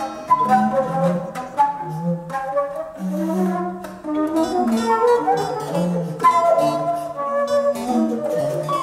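Contemporary chamber music: recorders playing held, shifting notes, a high line over low notes from a square bass recorder, with the ensemble dipping briefly about four seconds in.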